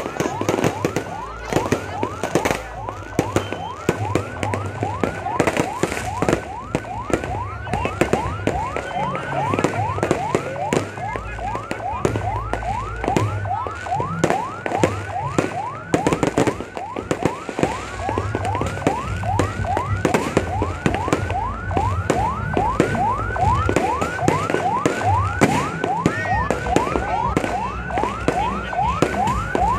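An emergency vehicle's siren yelping: a quick rising wail repeating about three times a second without a break. Fireworks bangs and crackle sound over it.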